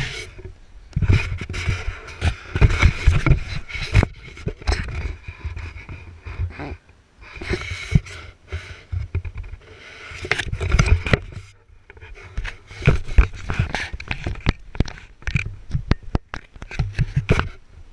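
Handling noise on an action camera: irregular rubbing, scraping and knocks as it is grabbed and moved about, with a short lull about halfway through.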